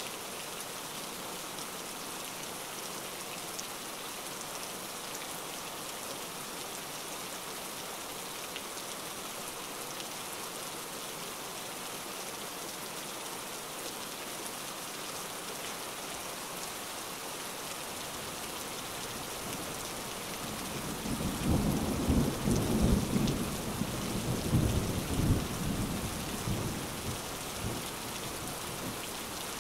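Rain-and-thunder ambience: steady rain throughout, with a roll of thunder rumbling for several seconds about two-thirds of the way through.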